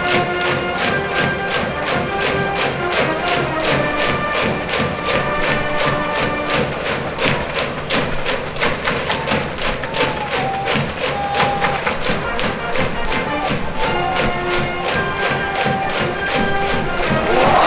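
High school brass band playing a cheering song from the stands, with held brass melody notes over a steady, fast drum beat. Near the end a crowd cheer swells up over the music.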